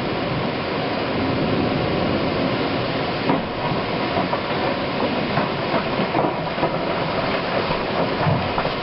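Heavy rain and strong wind of a severe thunderstorm, a steady dense rush with scattered sharp ticks through it.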